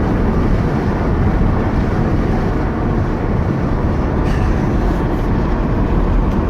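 Steady rumble of a car being driven, heard from inside the cabin: road and engine noise with no clear changes.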